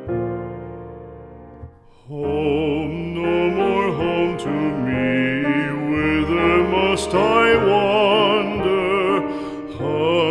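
Background music: a piano chord fades away, then from about two seconds in a classical-style singing voice with wide vibrato comes in over piano accompaniment.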